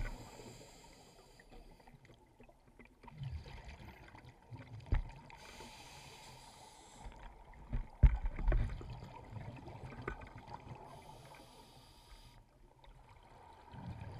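Underwater sound through a camera housing: scuba regulator exhaust bubbles rising in hissing bursts about every five to six seconds, between a low rumble and a few dull knocks against the housing.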